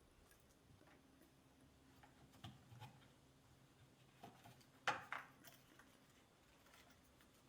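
Near silence with a few soft clicks and knocks of small objects being handled, the loudest about five seconds in, over a faint low hum.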